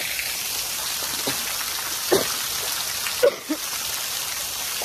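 Steady rush of running water with frogs calling: a few short croaks stand out, the loudest about two and three seconds in.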